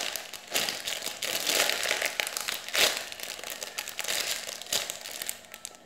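Clear plastic packaging bag around a squishy toy crinkling on and off as it is held and turned in the hands.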